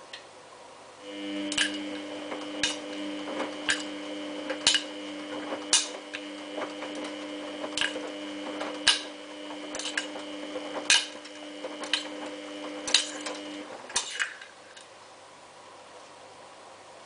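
Samsung WF8804RPA front-loading washing machine turning its drum during the prewash: a steady motor whine with a sharp clank about once a second as the wet sleeping bag tumbles. The motor stops near the end and the drum rests.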